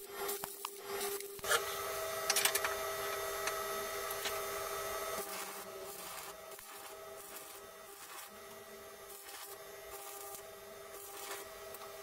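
Stick (arc) welding on steel square tubing: the electrode arc crackles and sizzles, louder in the first half, over a steady hum.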